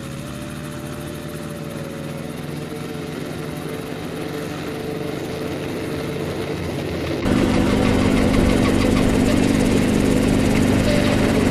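Small helicopter running on its landing pad, a steady engine and rotor hum that slowly grows louder. About seven seconds in it cuts abruptly to the louder engine and rotor noise inside the cabin in flight.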